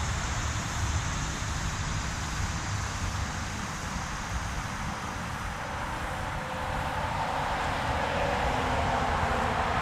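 Steady outdoor background noise with an uneven low rumble, growing a little louder after about six seconds.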